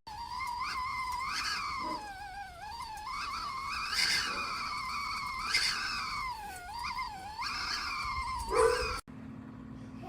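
Stovetop kettle whistle at the boil: a steady-loud wavering tone whose pitch drifts up and down and swells several times, cutting off abruptly about nine seconds in.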